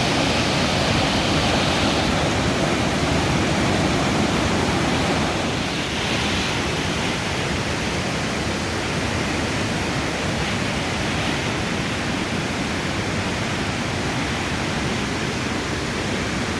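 Steady rushing of a flowing river, slightly louder for the first few seconds.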